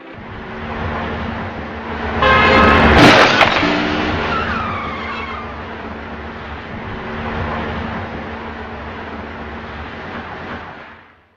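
Car crash: a brief squeal, then a loud impact about three seconds in, followed by falling tyre squeals over a steady traffic rumble.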